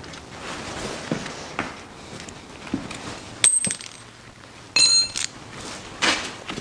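Metal hand tools clinking: a sharp metallic click about halfway through, then a ringing clang about a second later, like a wrench or socket being set down on metal, and a shorter knock near the end.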